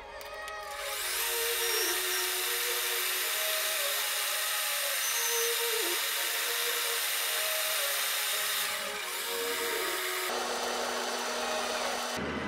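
Metal lathe starting up about a second in and running with a steady hiss, a threaded steel handle spinning in its chuck; near the end the sound settles into a steadier hum. Background music plays under it.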